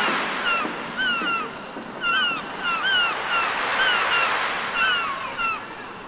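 Small birds chirping in quick, repeated short calls, about three a second, over a steady rushing background noise; the chirps stop shortly before the end.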